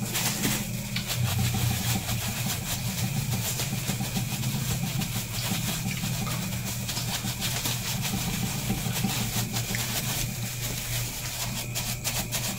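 Steady low machine hum, like a motor running, with faint crinkling and light clicks of a plastic bag worn as a glove as a hand presses down a soft pudding in metal trays.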